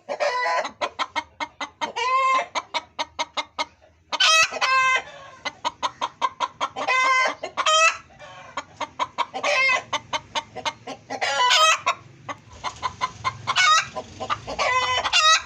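A hen cackling: runs of quick clucks, each ending in a drawn-out, rising squawk, repeated every two to three seconds. This is the call known as the hen's egg song.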